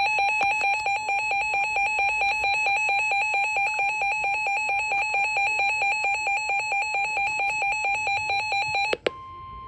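Weather radio receiver's alert alarm beeping rapidly and loudly, set off by the new warning's data burst. The beeping cuts off about nine seconds in, and a quieter steady tone, the 1050 Hz NOAA Weather Radio warning alarm tone, takes over.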